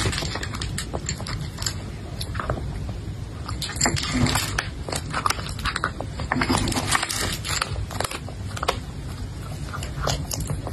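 A cat crunching dry kibble, a quick irregular run of sharp crunches as it chews.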